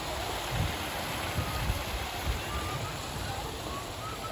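Fountain water splashing steadily into an outdoor pool, with faint distant voices of bathers.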